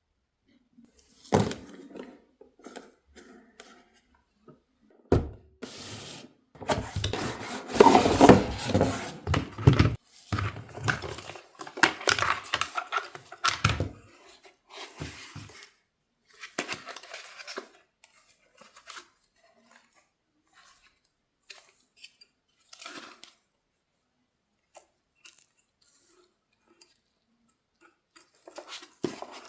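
Toy packaging being handled and opened by hand: irregular rustling and tearing of cardboard and plastic with sharp clicks and knocks, busiest in the first half and sparse toward the end.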